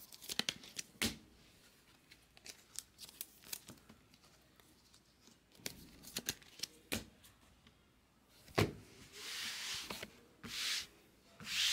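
Hands handling chrome trading cards: light clicks and rubs as the cards are slid and flicked, with a louder knock about two-thirds of the way through. Near the end come two short rasping tears as a foil card pack is ripped open.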